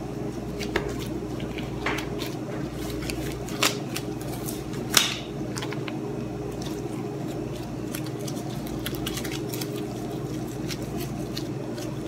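Loose plastic food-handling gloves crinkling, with scattered soft clicks, as hands knead and shape bread dough on a countertop, over a steady low hum. The sharpest click comes about five seconds in.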